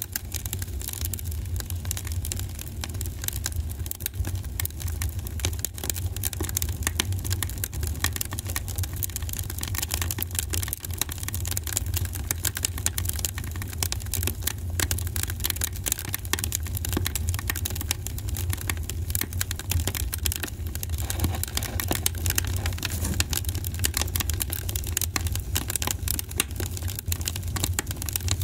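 Steady low rumble mixed with dense crackling noise, with no clear tone or rhythm.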